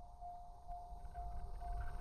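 Japanese level crossing warning bell ringing with evenly spaced electronic dings, about two a second. The low rumble of the approaching E259 series Narita Express train grows louder from about a second in.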